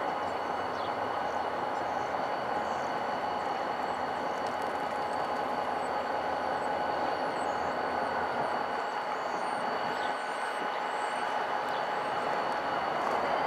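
Diesel-electric locomotive running while stopped, a steady drone carrying several high whining tones that hold their pitch.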